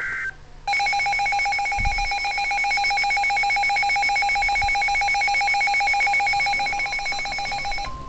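Midland HH54 weather radio sounding its alert alarm on receiving a severe thunderstorm warning: a loud electronic tone, pulsing very rapidly, starts about a second in and stops just before the end. It follows the tail of the brief warbling SAME data burst that triggered it.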